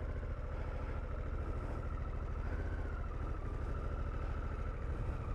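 Harley-Davidson Pan America's 1250 cc V-twin running at low revs with a steady, even pulse as the bike crawls slowly through the turns.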